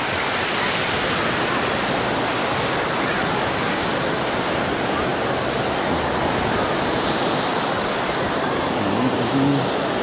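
Small sea waves breaking and washing over a shallow sandy shore: a steady rush of surf.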